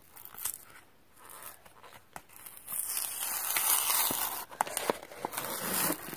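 Cardboard backing of a pack of mini erasers being torn open: a long tearing stretch begins about two and a half seconds in, followed by a few sharp crackles and clicks near the end.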